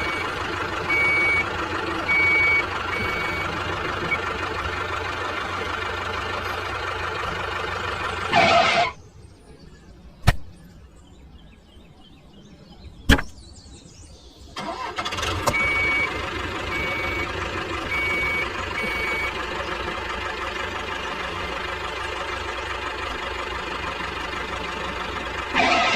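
A vehicle engine running steadily, with a reversing alarm beeping in short runs of about four or five beeps. The engine cuts out about a third of the way through, leaving two sharp clicks in the gap, then starts up again and runs on with another run of beeps.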